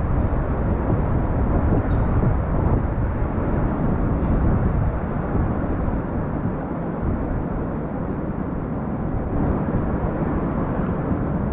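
Steady muffled rumbling noise with no distinct events in it.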